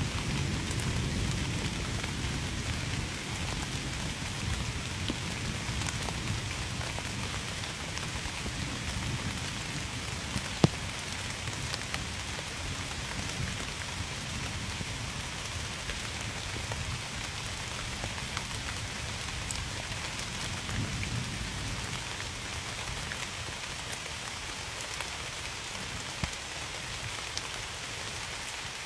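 Steady heavy rain falling, with individual drops clicking on a surface. A low rumble of distant thunder eases away over the first several seconds, and one sharp drop strike stands out about ten seconds in.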